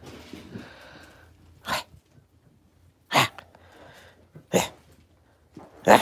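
Golden retriever puppy snorting in short, sharp nasal bursts, four times about a second and a half apart.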